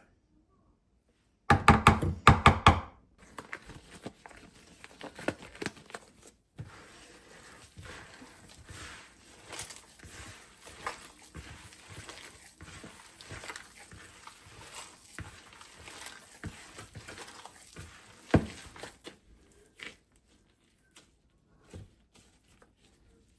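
Household handling sounds: a quick run of loud knocks about two seconds in, then a long stretch of light rustling, crinkling and small clicks, with one sharper knock near the end.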